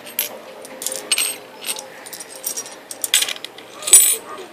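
Irregular clinks and rattles of small hard objects being handled, loudest about four seconds in.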